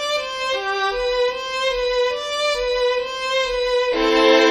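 Instrumental music: a melody of held notes moving every half second or so, with a louder, fuller chord coming in near the end.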